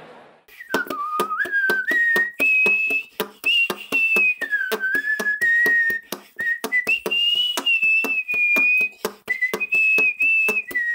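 A person whistling a tune over a steady clicking beat of about four taps a second.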